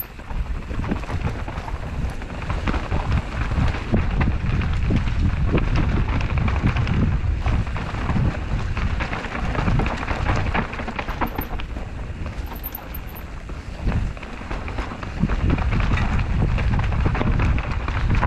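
Mountain bike riding fast down a dirt and root-strewn forest trail: tyres rumbling over the ground and the bike rattling and knocking over bumps, with wind rushing on the camera's microphone.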